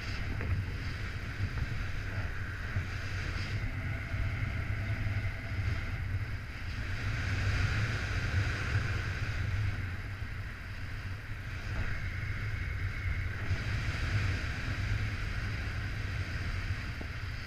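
Wind rushing over the camera's microphone in flight: a steady, rumbling buffeting that rises and falls slightly in strength.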